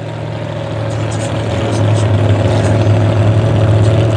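Truck engine running with a steady low drone that grows gradually louder.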